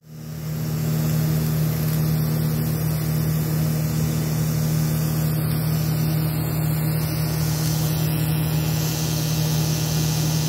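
A steady mechanical drone with a strong low hum that fades in over the first second and then holds even.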